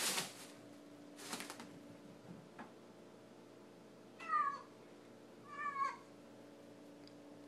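Plastic shopping bag rustling briefly twice, then a domestic cat meowing twice, the calls about a second and a half apart.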